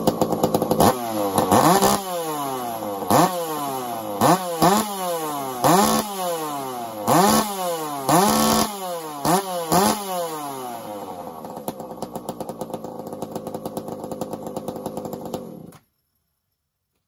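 Small two-stroke top-handle chainsaw engine running, its throttle blipped about eight times, each rev dropping slowly back to idle. It then idles steadily and cuts off suddenly near the end.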